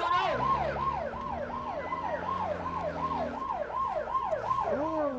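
Siren sound effect: a fast, repeating falling wail, about three sweeps a second, sounding a fire alarm.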